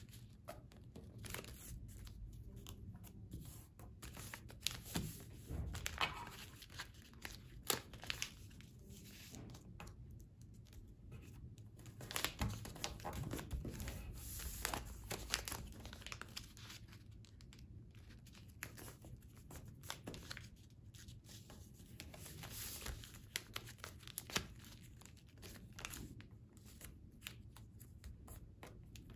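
A sheet of white paper being folded and creased by hand: faint rustling and crinkling, with scattered sharper crackles as the folds are pressed down.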